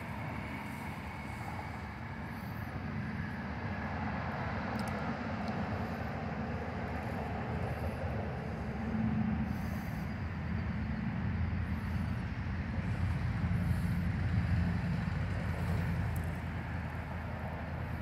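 Steady low rumble with a hiss over it, growing louder through the middle and easing near the end.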